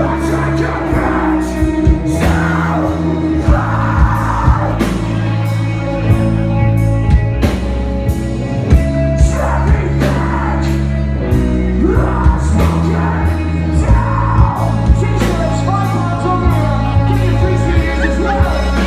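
Rock music with a singing voice, over held bass notes and a regular beat of sharp hits.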